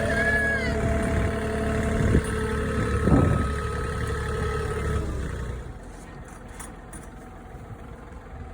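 A vehicle engine idling steadily, then switched off about five and a half seconds in. A short high squeak comes just after the start and a thump about three seconds in.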